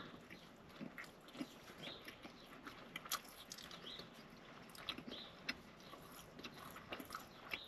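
Faint mouth sounds of a man chewing a bite of an arepa with his mouth closed, with soft scattered clicks.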